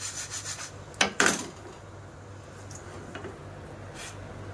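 Spatula scraping rhythmically, about five strokes a second, across crisp, well-toasted semolina flatbread on a nonstick pan, sounding how crisp the crust is. About a second in, two sharp knocks against the pan; then a low hum with a few faint taps.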